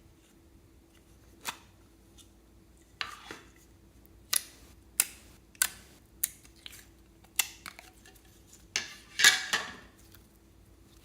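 Small objects and utensils being handled while making slime: about ten sharp clicks and taps at irregular intervals, with a louder rattling cluster about nine seconds in.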